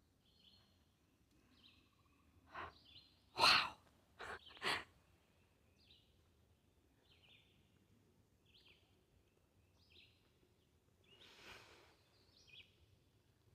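A bird calling over and over in quiet woodland: short, high chirps about once a second, under a faint outdoor background.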